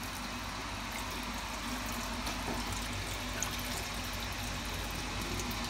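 Kitchen tap running in a steady stream into a stainless-steel sink.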